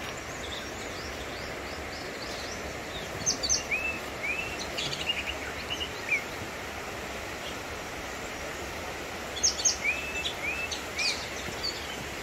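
Wild birds singing in scrub forest: two bursts of sharp chirps and short rising whistles, about six seconds apart, over a steady background hiss.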